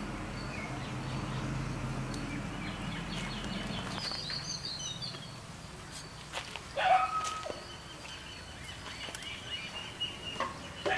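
Birds chirping and calling outdoors, with a louder call about seven seconds in. A few sharp metal clicks come from tongs knocking against the steel skewers over the charcoal. A low steady hum runs under the first half and fades out.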